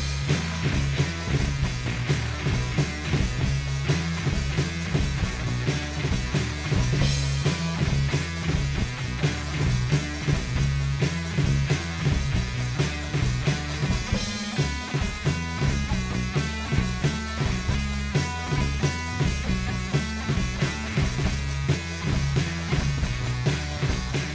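Garage rock trio playing live: distorted electric guitar, electric bass and drum kit, with a steady driving beat.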